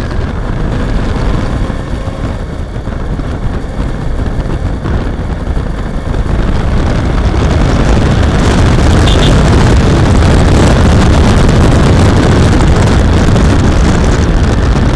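Riding noise from a Suzuki V-Strom 650 motorcycle: wind rushing on the camera microphone over the engine, with no clear engine note standing out. It grows louder about six to seven seconds in and then stays steady.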